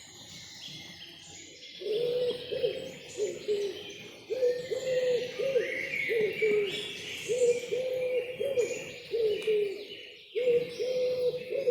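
Forest birdsong: small birds chirping and trilling high throughout, joined about two seconds in by a bird's low hooting calls, repeated in quick runs of notes that pause briefly twice.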